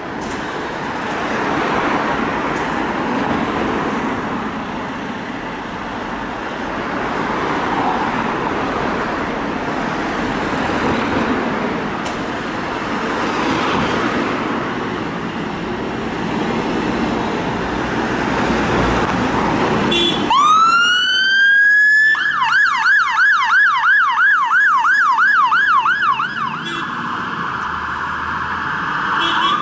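Road traffic passing for about twenty seconds, then an emergency vehicle's siren winds up in a rising wail, switches to a fast yelp of about three sweeps a second, and drops to a fainter steady tone near the end.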